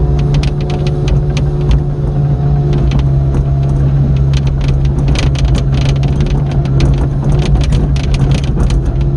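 Diesel engine of an old Samsung MX55 02-class excavator running steadily, with a constant low hum and many irregular sharp rattling clicks.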